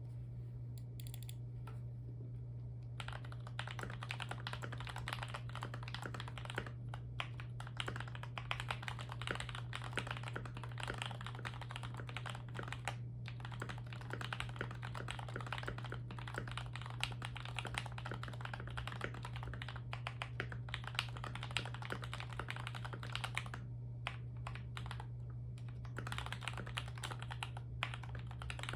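Fast typing on an Akko MonsGeek MG75 mechanical keyboard with lubed Gateron Milky Red Pro linear switches, PBT Cherry-profile keycaps and a tape mod: a dense, thocky run of keystrokes that starts about three seconds in, stops briefly near the end, then picks up again. A steady low hum runs underneath.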